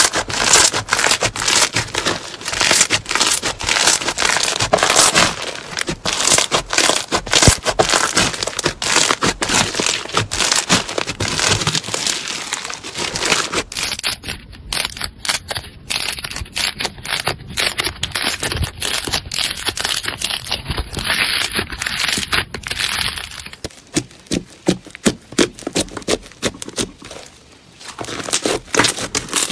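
Hands squeezing and kneading slime, with dense crackling and popping. The sound changes twice as a different slime is handled, and it is quieter for the last few seconds.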